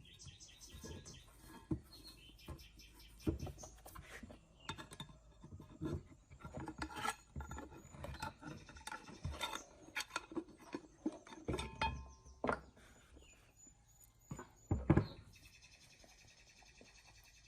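Metal parts and hand tools clinking, knocking and scraping in irregular strikes, some with a short metallic ring. A fast rhythmic rasping comes in near the start and again near the end.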